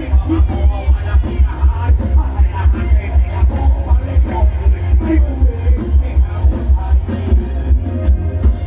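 Loud dance music from a Thai rot hae sound truck's speaker stack, driven by a heavy bass beat about twice a second.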